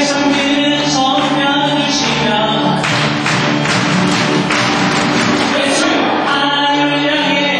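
Live church praise music: a worship team singing a gospel song over instrumental accompaniment, with a noisier, hissier stretch from about three to four and a half seconds in.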